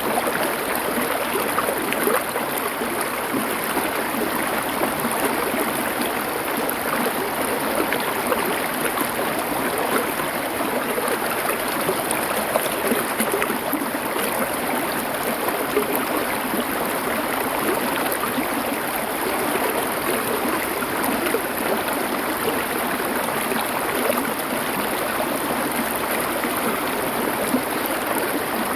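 Stream water flowing over stones, a steady, unbroken rushing.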